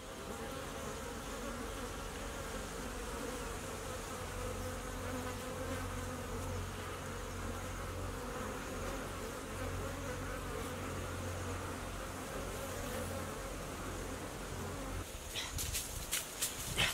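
Bees buzzing steadily in a swarm around their nest. About fifteen seconds in, rustling steps through brush start and grow louder near the end.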